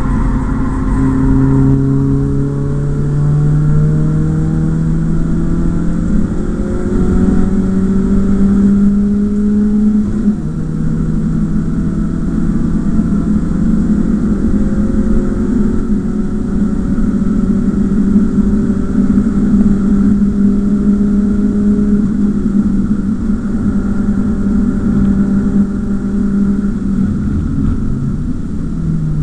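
Inline-four engine of a BMW E36 318is heard from inside the cabin, running hard under load. Its pitch climbs slowly for most of the stretch, with a few brief dips, and a steady rushing noise runs underneath.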